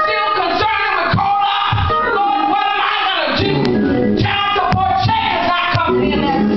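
A woman singing into a handheld microphone, amplified through a church PA system, with a sharp beat about once a second in the second half.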